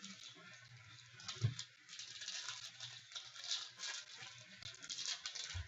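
Trading cards and their packaging being handled close to the microphone: an irregular run of light rustling, sliding and ticking sounds.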